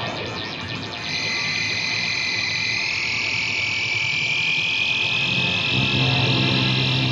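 Eerie ambient drone passage in a metal track: a buzzing, hissing texture with high sustained tones that slowly rise in pitch, and a low steady drone entering about six seconds in.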